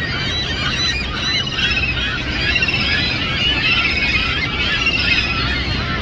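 A large flock of gulls calling all at once: many overlapping squeals and rapid laughing trills, over a low steady rumble.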